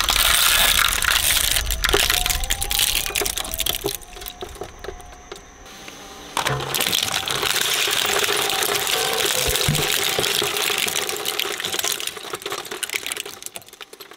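Twin-shaft shredder crunching a plastic quadcopter drone, a dense run of cracks and snaps. It eases off about four seconds in. From about six and a half seconds it crunches a Lego-brick sneaker and falls away near the end as the blades run empty.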